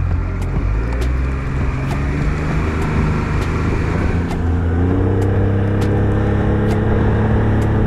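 Tiller outboard motor on a small aluminum fishing boat running under throttle, its pitch stepping up about halfway through as the boat speeds up, with scattered sharp taps over the engine.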